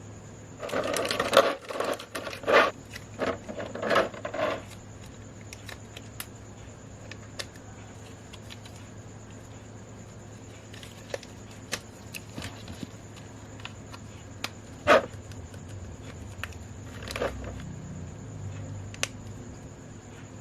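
Plastic packaging of a boxed figure being handled and unpacked: a few seconds of loud crinkling and scraping near the start, then scattered light clicks and taps of small plastic parts, with one sharper knock about fifteen seconds in, over a steady low hum.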